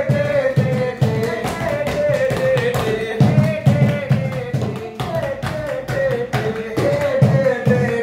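A song: a voice holds a long, wavering melody over a beating drum and many sharp taps or claps.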